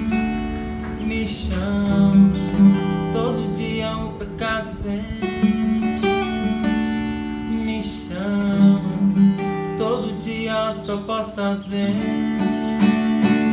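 Steel-string acoustic guitar strummed in chords, with a steady rhythm of strokes and changing chords.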